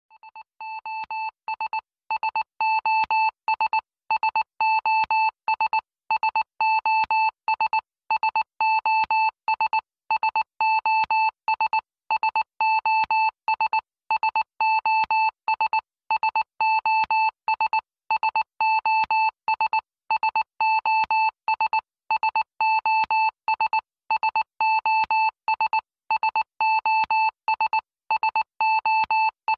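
Background music: a single high electronic keyboard note repeated in a rapid, even pulse, fading in over the first couple of seconds.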